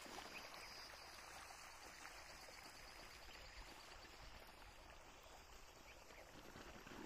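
Near silence: faint, even outdoor field ambience.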